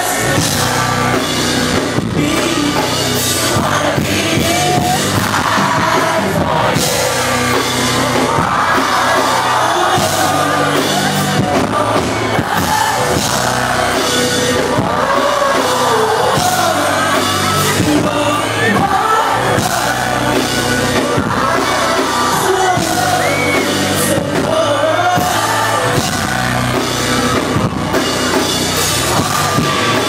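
Live band playing, with a male lead singer over drums, electric guitar and bass, heard loud and steady from within the audience.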